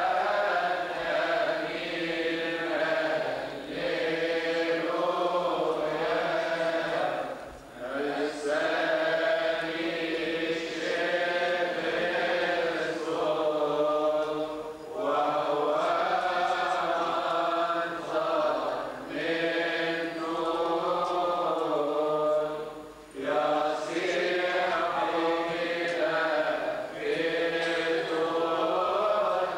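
Voices chanting a Coptic Orthodox liturgical hymn in long, drawn-out wavering phrases, with brief pauses for breath about every eight seconds.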